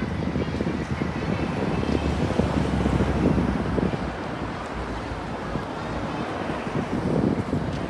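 City street ambience: a low, uneven rumble of traffic with wind buffeting the microphone.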